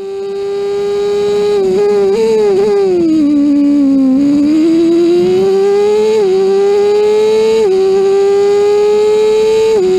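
On-board sound of a Formula Ford 1600 race car's Honda four-cylinder engine, loud and high-revving. After a steady stretch it blips down through the gears as the revs fall under braking into a corner, then climbs back up with three upshifts as it accelerates out.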